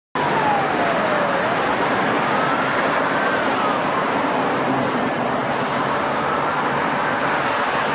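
Ambulance siren in a slow wail, faint and still some way off, rising and falling over the steady noise of passing road traffic.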